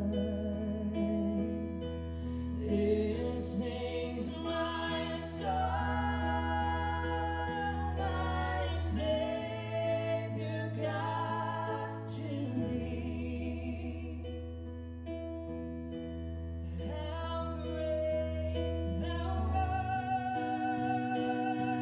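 Live band playing a song: piano and drums with singing over a steady low bass line.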